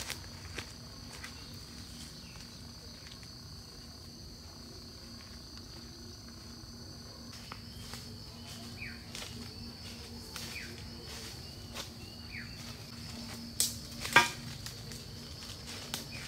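Steady high-pitched drone of forest insects, with scattered light clicks and a few short falling chirps. Two sharp knocks come close together near the end and are the loudest sounds.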